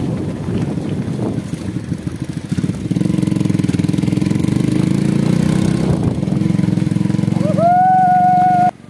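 Motorcycle engine running steadily as the bike rides along a track. Near the end a loud, high tone rises in, holds for about a second and cuts off abruptly.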